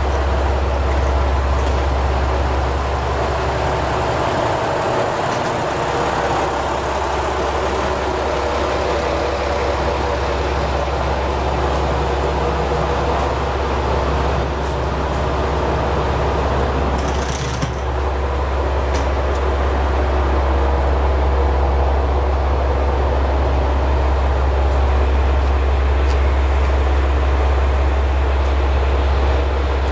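Ihara Railway IRT355 single-car diesel railcar's engine idling, a steady low hum.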